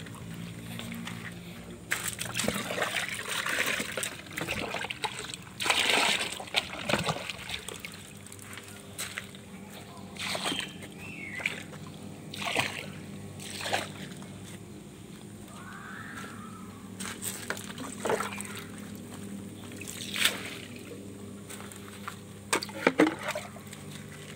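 Water splashing into an aerated biofloc fish pond: a burst of splashing in the first seconds, then single splashes every couple of seconds, over a steady low hum.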